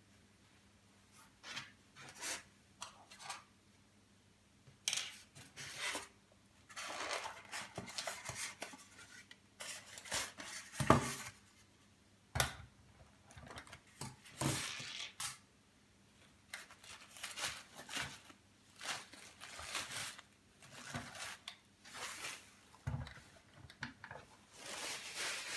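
Unboxing handling sounds of a diecast model car: tissue paper and plastic wrapping rustling and styrofoam packaging rubbing in irregular short bursts, with a couple of sharp knocks a little past the middle as pieces are handled or set down on the table.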